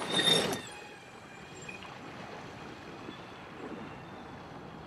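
A short loud rush of noise in the first half second, then the faint steady wash of a kayak running under a small electric outboard, the Ultralight 403AC, with a faint high tone that comes and goes.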